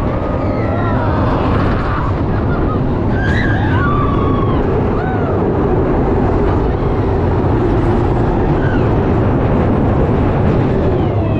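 Steady low rumble of a running vehicle engine, with faint high gliding calls or voices over it in the first few seconds.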